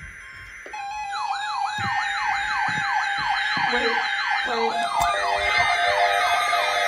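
Several weather radio receivers' electronic alarms sounding together for the weekly test, as fast rising-and-falling siren-like sweeps over a steady tone. They start abruptly about a second in.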